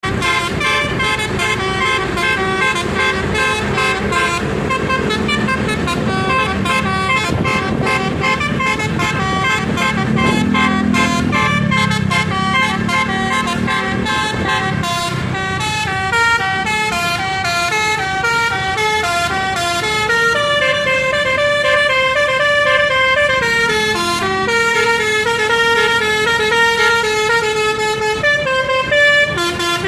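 Basuri 'telolet' musical horn, a set of electric horns playing a melody. The tune runs in quick short notes at first, then in longer held notes in the second half.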